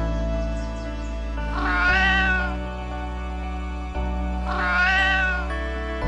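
A drawn-out animal call, rising then falling in pitch, heard twice about three seconds apart over steady background music.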